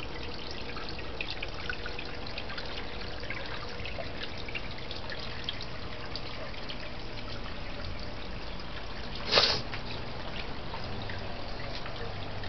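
Water trickling and dripping into a small garden fish pond, a steady patter of small drips. One brief, louder noise stands out about nine seconds in.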